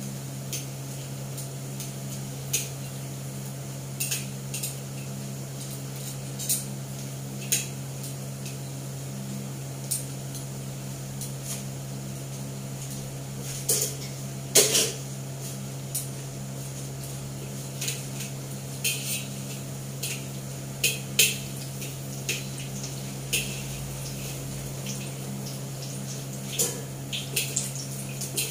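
Metal tongs clinking and scraping against a wok while potato fritters are turned, in scattered sharp clinks with a louder clatter about halfway through, over a steady low hum.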